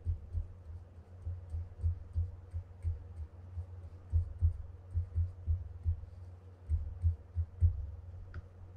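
Dull, irregular low thumps, a few a second, with faint ticks, as a small brush dabs grease into the centre of a spinning reel's plastic body on a work bench.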